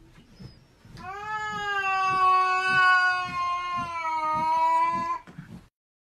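A cat giving one long, drawn-out yowl of about four seconds, nearly level in pitch and dipping slightly before it stops. It is a cat's warning call in a close face-off with another cat.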